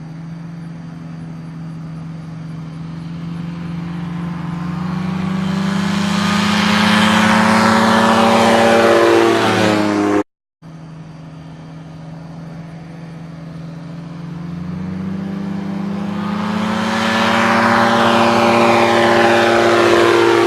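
Buccaneer XA amphibious ultralight's engine flying past twice, each pass growing louder as it nears and dropping in pitch as it goes by; a brief cut to silence about ten seconds in separates the two passes.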